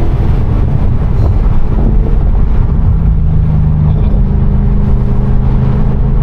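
The 6.2-litre supercharged V8 of a 2016 Cadillac CTS-V running while the car is driven, a steady loud engine note with only slight changes in pitch.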